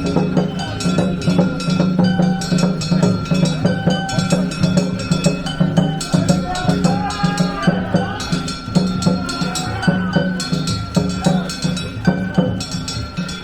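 Gion float festival music (hayashi): drums under fast, even struck-percussion beats, with a high wavering melody line on top.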